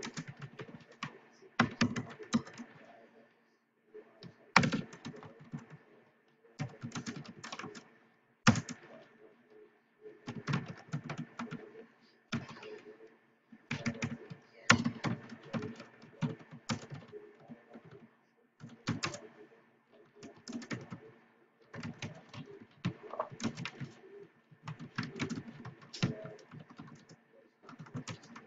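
Typing on a computer keyboard: short runs of rapid keystrokes with brief pauses between them.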